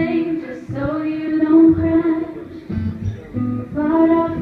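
Woman singing live into a microphone, accompanying herself on a strummed acoustic guitar.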